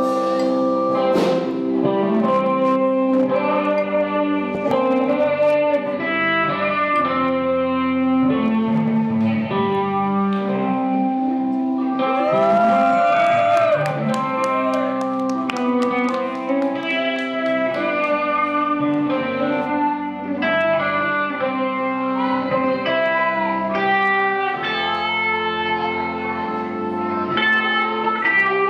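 Band music with guitar to the fore, a string of sustained notes and a bent note about halfway through.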